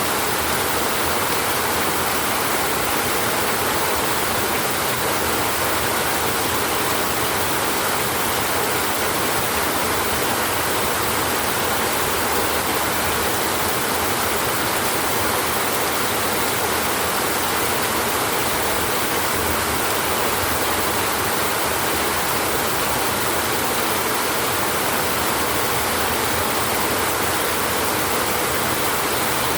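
Rain falling steadily on a tin roof, a dense, even hiss with no breaks and no thunder.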